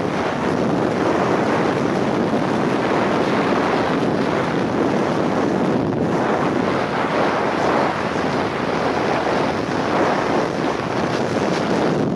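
Steady wind rushing over the microphone at an open car window, with the road noise of the moving car underneath.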